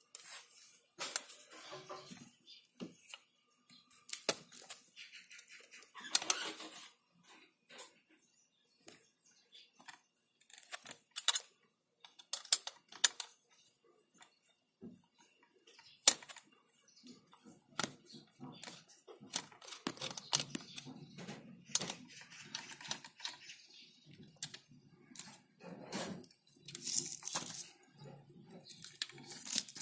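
Irregular clicks, taps and short scrapes as an opened metal computer power supply case and a screwdriver are handled.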